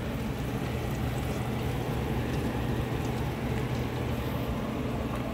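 Steady sizzling of fat and juices in a roasting pan under two beer-can chickens, over a low steady hum.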